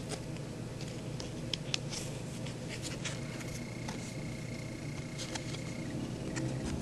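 Scattered light clicks and rustles of a cardboard toy box being handled, over a steady low hum. A faint high whine runs for a couple of seconds in the middle.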